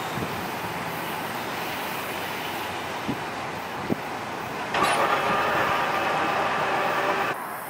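LA Metro light-rail train running along the track and moving away, a steady rolling noise with a couple of sharp clicks about 3 and 4 seconds in. About five seconds in a louder rushing noise with faint steady tones in it sets in, then cuts off suddenly near the end.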